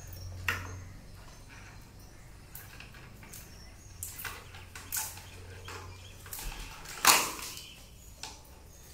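Scattered clicks and knocks of hands-on handling work, the loudest a sharp knock about seven seconds in, over a faint low hum.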